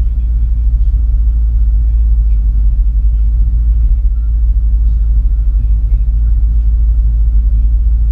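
Car driving at a steady speed: a loud, constant low rumble of road and wind noise.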